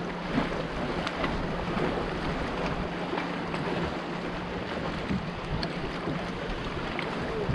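A boat running on the water: a steady low engine hum under a wash of rushing water and wind buffeting the microphone.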